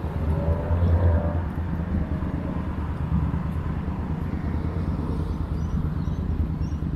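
Street traffic: a steady low rumble of vehicles, swelling about a second in as one passes close.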